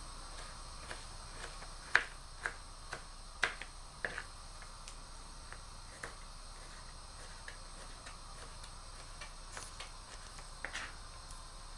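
Kitchen knife dicing a tomato on a plastic cutting board: irregular sharp taps of the blade on the board, most of them in a cluster about two to four seconds in, with a few more near the end.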